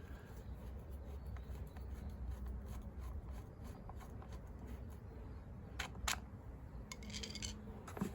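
Faint handling of small metal tools and parts: two sharp clicks a little under six seconds in, a short metallic jingle about a second later and a last click near the end, over a low steady hum.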